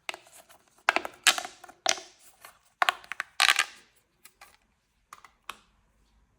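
Plastic pop tubes being stretched and squashed, giving bursts of rapid crackly clicks and pops. There are four or so bursts in the first four seconds, then a few single clicks.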